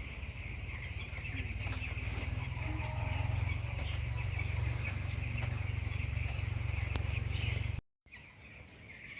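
Broiler chickens clucking and chattering as a flock in a poultry house, over a heavy low rumble. The sound cuts out abruptly for a moment about eight seconds in, then the flock is heard again more faintly.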